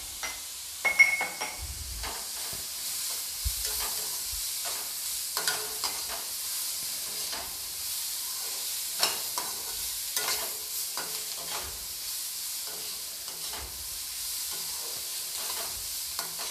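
Diced vegetables sizzling in a kadai while a steel slotted spoon stirs and scrapes them, the spoon knocking against the pan every second or two. A brief ringing clink of metal on metal about a second in.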